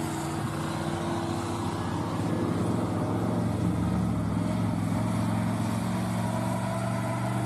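Heavy military truck of a BM-21 Grad rocket launcher, its engine running steadily; the engine note shifts slightly about halfway through.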